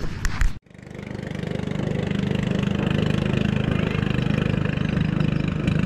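A small boat's engine running steadily nearby, a low hum with a fast even pulse. It comes in after a sudden cut about half a second in, grows louder over the next second or so, then holds steady.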